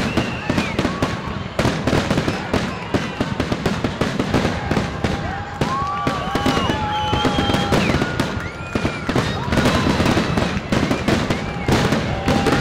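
Aerial fireworks display: a rapid, continuous barrage of bangs and crackles, with short whistling tones rising and falling between the reports.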